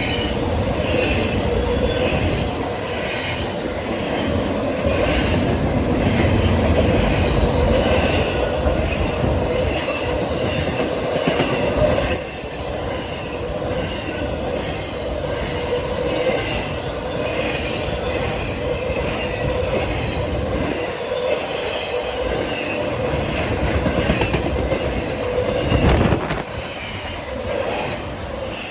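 Train cars rolling past, the wheels clicking in an even rhythm over rail joints, with a steady wheel squeal.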